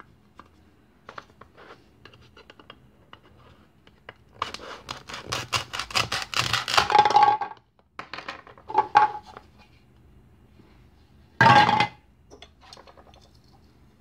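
Velcro ripping as a plastic toy cabbage is pulled apart into its leaves: a long crackling rip from about four to seven and a half seconds in, then two shorter rips. Light plastic taps and clicks of the toy pieces being handled between them.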